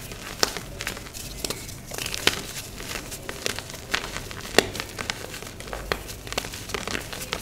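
Gym chalk crushed and crumbled by hand: dry crunching with irregular sharp cracks.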